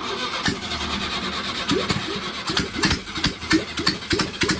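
Air-cooled VW flat-four engine cranking on the starter and firing irregularly, its cylinders catching more and more often. It is loud because no exhaust is fitted.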